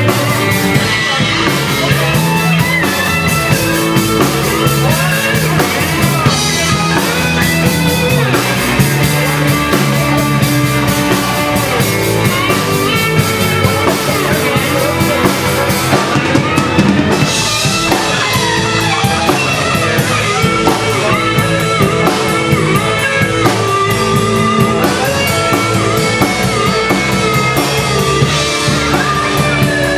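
Live rock band playing: electric guitars over bass and drum kit in an instrumental stretch, with bending lead-guitar notes.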